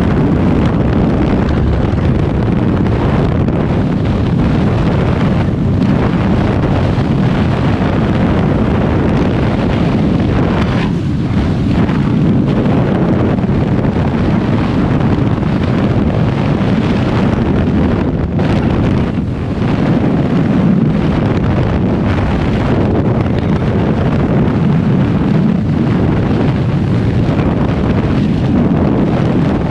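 Skydiving freefall wind rushing over the camera microphone, a loud steady roar of air buffeting the mic.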